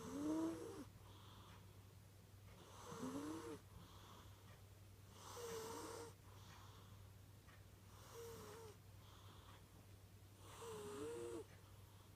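A cat snoring in its sleep: five slow, even breaths about every two and a half seconds, each a wheezy snore with a wavering, whistling pitch.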